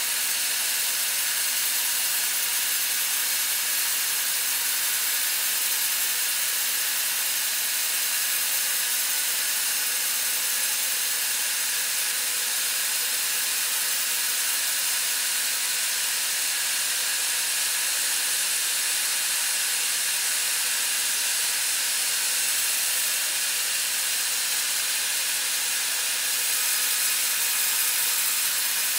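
Large band sawmill blade re-sawing a monkeypod slab lengthwise as the carriage feeds it through. It makes a steady, even hiss of blade in hardwood, with a faint machine hum beneath.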